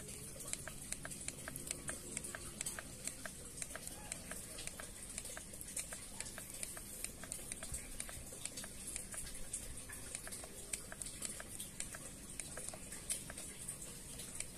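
Light, repeated clicking of the SET button on a Honda Mega Pro FI's digital instrument panel. It is pressed over and over, a few clicks a second, to step the clock's minutes forward.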